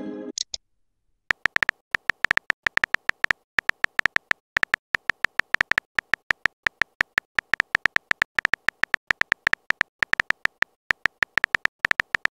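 Short clicking beeps, a typing sound effect, rattling off several a second in irregular runs with brief pauses between them.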